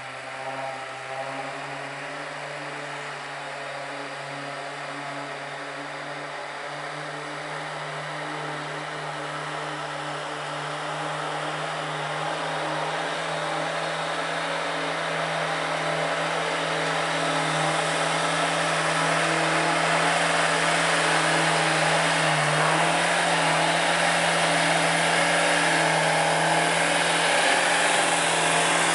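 V8 engine of a 1960 Mercedes-Benz Unimog running at a steady, even pitch as the truck crawls closer through deep snow, growing steadily louder; a rising hiss of the big tyres churning snow builds under it.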